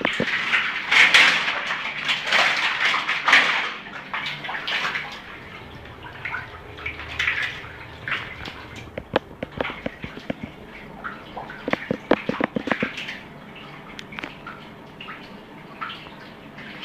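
Piranhas flopping on a wet tiled floor: wet slaps and rapid runs of taps as their bodies and tails strike the tile. The sounds are loudest and busiest in the first four seconds, then come in short bursts.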